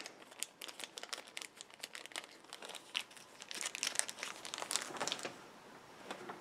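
A small clear plastic bag crinkling as it is handled and a small rubber tip is taken out of it, in quick irregular crackles that are busiest from about three and a half to five seconds in, then die away.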